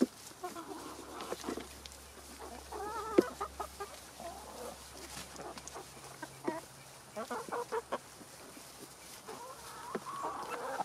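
Chickens clucking in short, scattered calls while feeding, with sharp taps of beaks pecking at food. The loudest tap comes about three seconds in.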